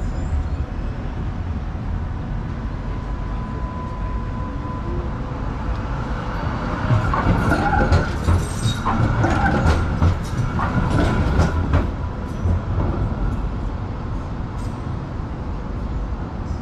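Electric tram passing on street track, its wheels clacking over rail joints in a run of sharp clicks through the middle of the stretch, over a steady low rumble of road traffic.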